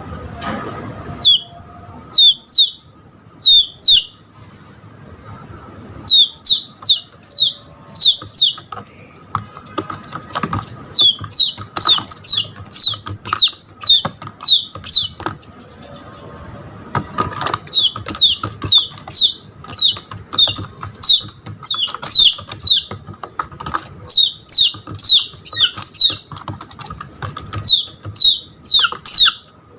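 Red junglefowl chick distress calls: loud, high-pitched peeps, each falling in pitch, repeated in quick runs with short pauses between. It is the crying call of a lost chick calling for its mother.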